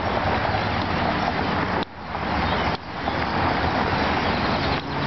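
The dense, continuous chatter of a very large flock of birds roosting and flying overhead. It drops away abruptly about two seconds in and again about three seconds in, then comes back.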